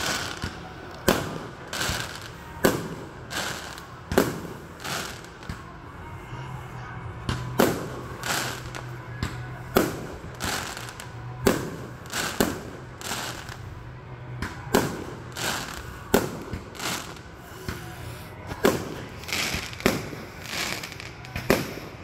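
Aerial firework shells bursting overhead in a steady string of sharp bangs, about one a second, each with a short echoing tail.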